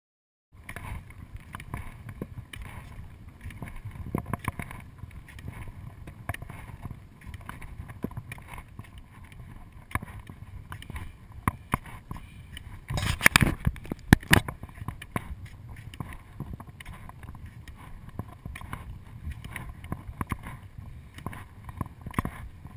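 Skis sliding over snow and ski poles planted in it, close on the microphone with wind noise. There are many small clicks and rubs throughout and a louder cluster of knocks a little past halfway.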